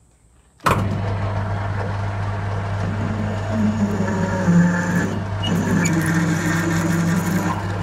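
Metal lathe running while a 16 mm twist drill bores into the end of a spinning aluminium bar: a steady low motor hum under the scraping noise of the drill cutting. The sound starts abruptly about half a second in.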